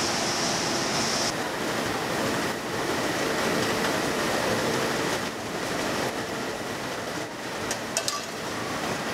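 Fish-paste production line machinery running with a steady, noisy din, and a few clicks near the end.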